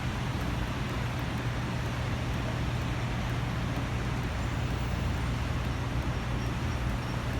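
Heavy diesel road-works machinery running steadily: a constant low engine hum under an even wash of mechanical noise.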